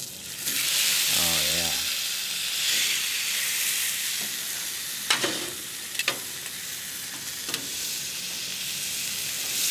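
Thick bison tomahawk steak sizzling loudly as it starts to sear on a griddle plate oiled with camelina oil and heated to about 560 degrees. There are a few sharp clicks about halfway through.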